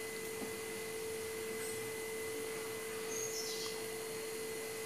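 A steady, even hum with faint background hiss, and one short high chirp falling in pitch about three seconds in.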